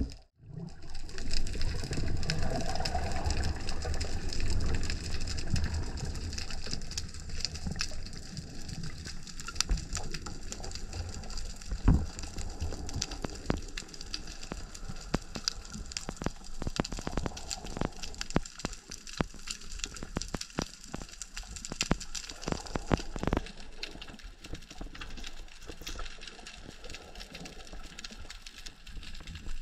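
Underwater ambience: a low rush of water movement with a dense crackle of small clicks, a few louder clicks standing out about twelve seconds in and again around twenty-two seconds. The rushing is stronger in the first half.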